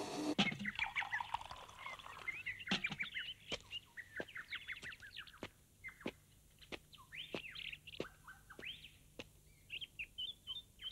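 Woodland birds chirping and calling, many short rising and falling chirps with scattered sharp clicks. A steady hiss cuts off just after the start.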